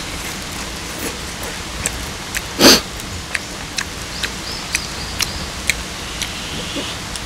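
Beef sizzling on an electric grill pan: a steady hiss with scattered sharp pops and crackles, and one louder burst of noise about two and a half seconds in.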